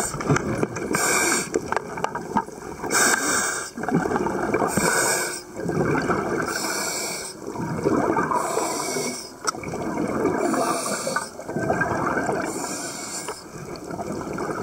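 Scuba diver breathing through a regulator underwater: a short hissing inhale, then a longer gurgling rush of exhaled bubbles, repeating about once every two seconds.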